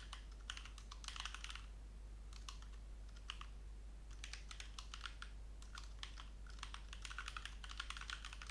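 Computer keyboard typing in short bursts of quick keystrokes with brief pauses between them, over a low steady hum.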